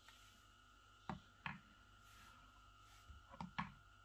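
Metal hair clippers handled and set down on a digital kitchen scale, making a few soft knocks: two about a second in, and a small cluster near the end, over a faint steady hum.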